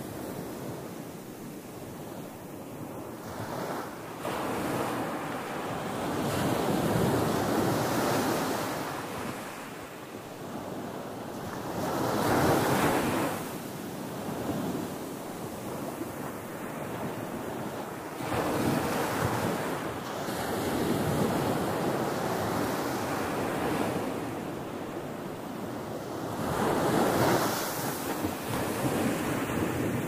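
Small ocean waves breaking and washing up a sandy beach. The surf swells and fades, with a louder surge about every six seconds as each wave comes in.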